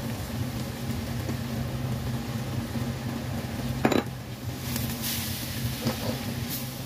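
Cookware sounds as onions are stirred in a wok with a silicone spatula, over a steady low hum. One sharp knock on the pan comes about four seconds in, followed by a few lighter scrapes.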